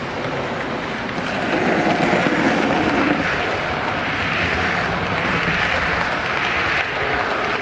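Model express train passing close by, an E645 electric locomotive hauling a rake of coaches: a steady rumble of wheels on the track, louder from about a second in as the train reaches the camera.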